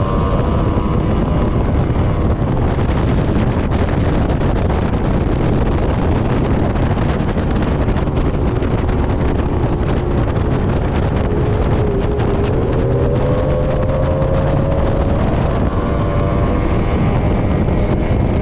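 Mariner outboard motor running at speed on a small speedboat, with wind buffeting the microphone. The engine note dips and then climbs again about twelve seconds in.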